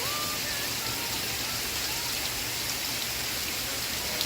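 Steady rain, an even dense hiss of drops, with a faint television soundtrack underneath.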